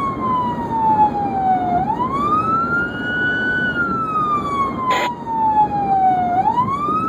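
Emergency vehicle siren in wail mode, heard from inside a moving vehicle over road noise: each cycle the pitch climbs quickly, holds briefly, then slides slowly down, about every four and a half seconds. A brief click cuts through about five seconds in.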